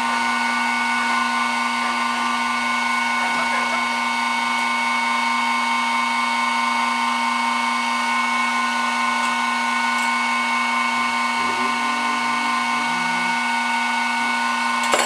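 G704 benchtop milling machine with its spindle running at a constant speed, a small bit drilling into steel plate, giving a steady whine made of several pitches over a low hum.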